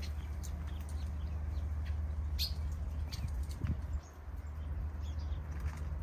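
Small aviary birds, finches among them, giving brief, scattered high chirps and calls, one louder chirp about two and a half seconds in, over a steady low rumble.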